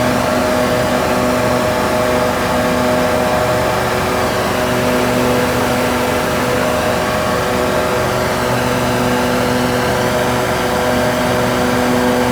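Engine-driven machinery running steadily: a loud, constant low droning hum that slowly swells and fades every few seconds.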